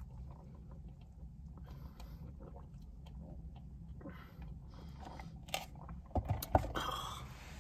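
Soft sipping through a straw from a paper drink cup over a steady low hum in a car cabin, with a few small knocks and rustles near the end.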